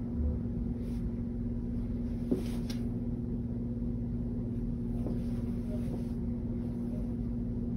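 Steady low machine hum with one sharp click a little over two seconds in.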